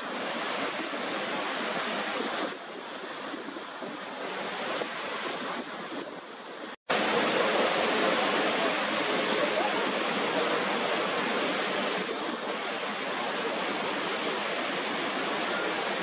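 Steady rush of Niagara Falls, water pouring over the crest. The sound drops out for an instant about seven seconds in and comes back louder.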